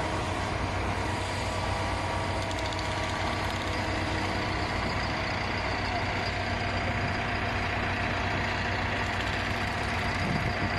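Diesel engine of a self-loading concrete mixer running steadily at an even pace.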